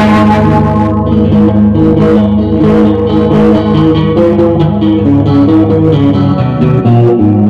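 Guitar being picked, playing a melody of ringing notes over a steady low bass line.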